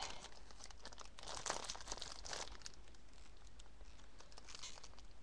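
Light, irregular crinkling and rustling of small craft flowers being handled close to the microphone, with a couple of slightly louder crackles in the first half.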